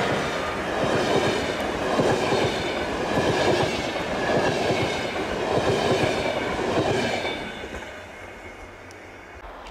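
Passenger coaches of a locomotive-hauled train rolling past at speed with steady wheel-on-rail noise and wheel clatter. The sound fades away from about seven seconds in as the last coach goes by.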